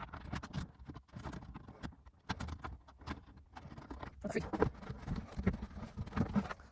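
Irregular light clicks, taps and rustles of hands handling an aircraft's interior trim panel and its screws while fitting them into place.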